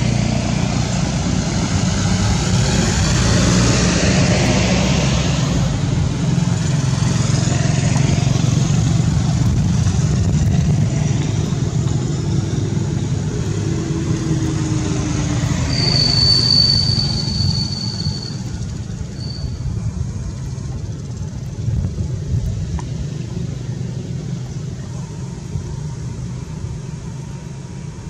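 Motor vehicle engine running steadily, getting quieter in the second half, with a brief high-pitched squeal about sixteen seconds in.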